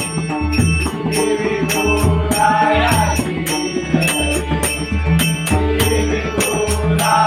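Pakhawaj drumming in a steady rhythm, deep bass strokes alternating with sharp treble strokes, with bright metallic hand-cymbal strokes on the beat, as in Malvani bhajan accompaniment.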